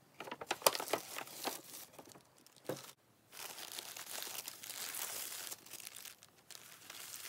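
Paper being handled: sharp, uneven crackles as a tissue-wrapped item is drawn out of a kraft paper shopping bag, then, after a short pause, a steadier crinkling as the white tissue paper is unfolded.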